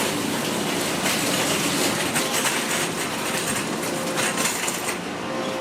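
Loaded luggage cart being pushed along, its wheels rolling and rattling steadily over pavement; the rattle falls away near the end.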